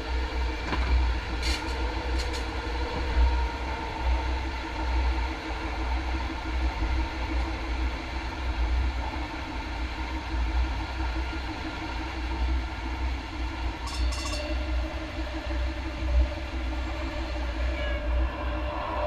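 MAX light rail train running along the track: a steady low rumble with a hum of steady tones over it. A few brief sharp clicks come about one and a half, two, and fourteen seconds in, and the hum shifts pitch near the end.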